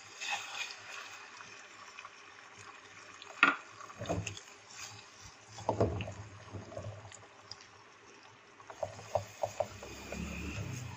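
Beaten egg frying in hot oil in a non-stick frying pan, a faint sizzle, broken by a few sharp knocks. Near the end, a spatula scrapes and taps the pan as the egg is broken up.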